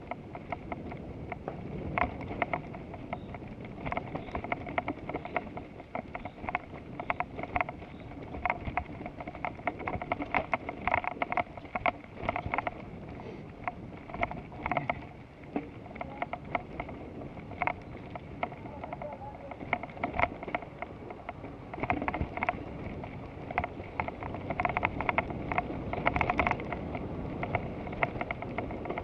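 Bicycle riding noise picked up by a mounted action camera: a steady rush of wind and tyre rumble with frequent irregular clicks and rattles, busiest for a few seconds near the end.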